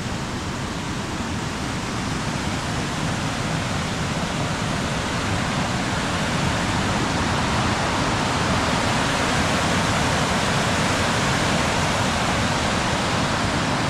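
Fast-flowing river water and a waterfall rushing as a steady roar that grows gradually louder.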